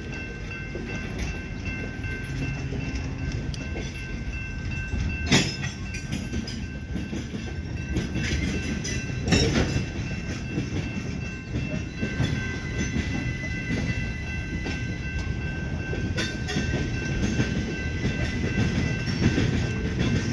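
Freight train cars rolling past at close range: a steady rumble of wheels on rail, with a sharp metallic clank about five seconds in and another about nine seconds in.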